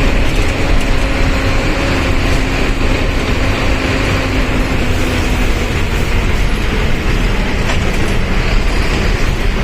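Mercedes-Benz OF1519 BlueTec 5 bus's diesel engine running, heard from inside the bus: a heavy, steady rumble with a droning note on top that fades out about five seconds in.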